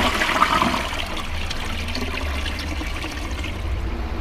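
Single-piece Parryware wash-down (flush-down) toilet flushing: water rushes around the bowl and down into the trap, loudest in the first second, then settling to a steadier running and gurgling as the bowl drains.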